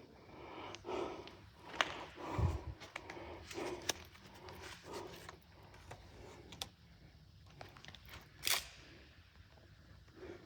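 Quiet, irregular footsteps and scuffs on a hard floor, with a few sharp clicks and taps among them.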